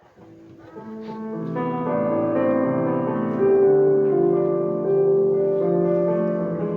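Slow keyboard introduction to a Christian song: sustained chords fading in over the first second or two, then held steady.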